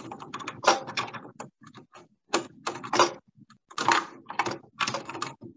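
Irregular clicking and clattering of hard parts of a sewing machine being handled and worked on by hand, in several short bursts.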